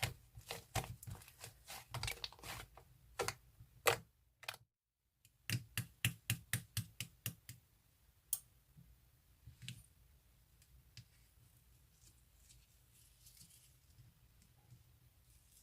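Slime being pressed and worked by hand, making rapid sharp clicks and pops. The clicking breaks off in dead silence about four and a half seconds in, returns as a quick even run of about four clicks a second, then thins out to faint soft handling sounds after about eight seconds.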